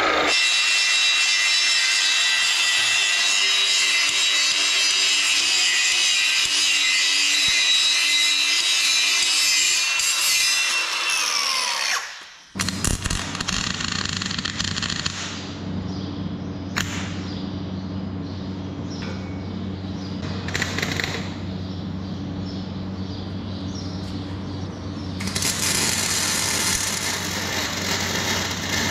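An angle grinder runs on the steel frame for about twelve seconds and then spins down with a falling whine. After a cut, MIG welding on the same steel: the arc crackles over a steady hum, louder near the end.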